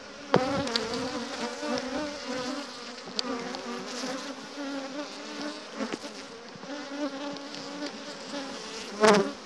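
Honey bees of a large, populous colony buzzing around an opened hive, a steady, slightly wavering hum. A few light clicks as a side frame is worked loose with a hive tool, and one louder swell of buzzing near the end.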